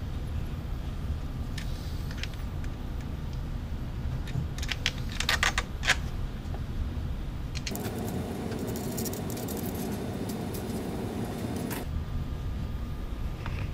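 Small steel screws and T-nuts clinking as they are handled and fitted into an aluminium bed bracket by hand: a cluster of sharp metallic clinks about five to six seconds in, then a stretch of rustling noise with scattered clicks, over a steady low rumble.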